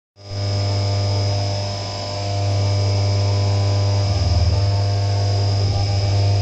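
CNC vertical mill roughing out an aluminium part under flood coolant: a steady, loud machine hum with cutting noise. The sound drops out for a moment right at the start.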